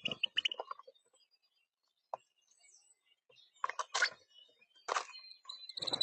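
Small birds at a backyard feeder: bursts of pecking and scuffling clicks, three clusters in the second half, with faint brief high chirps.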